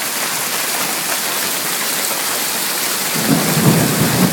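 Torrential rain mixed with hail pouring down in a steady hiss. About three seconds in, a low rumble of thunder sets in after a lightning flash.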